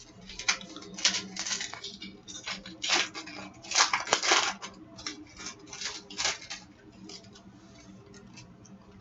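Trading-card pack wrapper crinkling and tearing open, with the cards inside being handled, in a run of rustles for about six and a half seconds, then a few light ticks.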